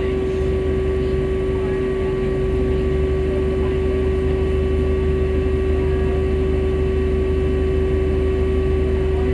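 Volvo B5L hybrid bus giving off a steady hum at one unchanging pitch over a constant low rumble, the odd sound the bus is making.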